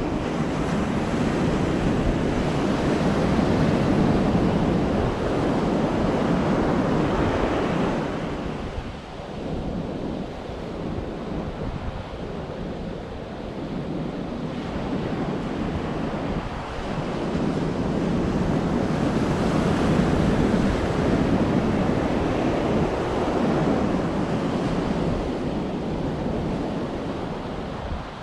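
Sea surf breaking and washing on a sandy beach, swelling and easing in long surges, with a quieter lull near the middle. Wind buffets the microphone throughout.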